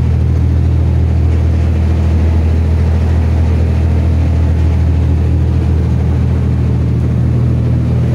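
Diesel engine of an enclosed lifeboat running steadily with ahead propulsion engaged, during an engine test. It makes a loud, even low drone, heard from inside the boat's enclosed hull.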